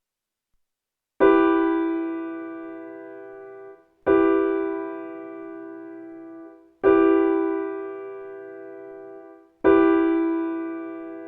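Piano-like keyboard striking the same chord four times, about every three seconds, each chord fading for about two and a half seconds before it is cut off.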